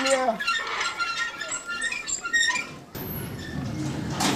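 Rapid high-pitched chirps and squeaks for about three seconds, then a faint steady hiss.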